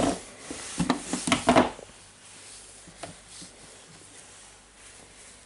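A few short knocks and clicks in the first two seconds as a soldering iron and a drill's plastic housing are handled on a wooden tabletop, then faint handling noise.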